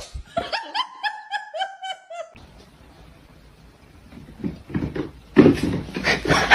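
A person laughing in a quick run of short high-pitched pulses, about four a second, then louder bursts of laughter near the end.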